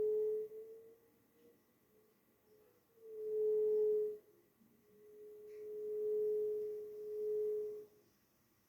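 Wind blowing through the open end of a newly fitted flexible electrical conduit in a wall, sounding one steady, flute-like howling tone. It swells and fades with the gusts three times; the last swell is the longest.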